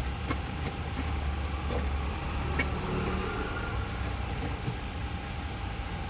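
Steady low background rumble, heavier over the first few seconds, with scattered light clicks.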